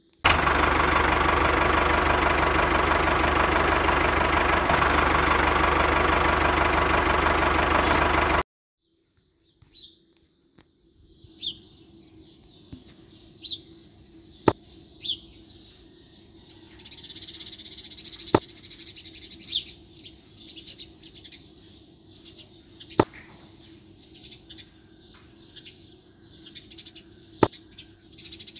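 A loud, dense, steady sound for about the first eight seconds that cuts off suddenly. Then birds chirping over a faint steady hum, with a few sharp clicks or knocks spaced several seconds apart.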